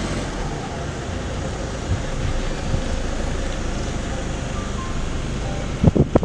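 Steady road noise from inside a slowly moving car: tyres and engine under an even rush of air. A couple of sharp thumps come near the end.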